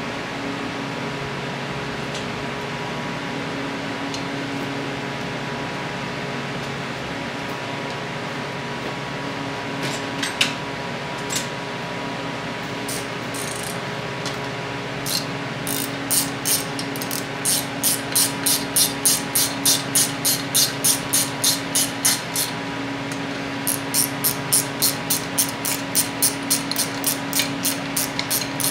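Hand ratchet clicking in even strokes, about two a second, as the water pump housing bolts are run down on a Chrysler 383 big-block, with one short pause partway through. A couple of light metal clinks come before the ratcheting starts, over a steady fan hum.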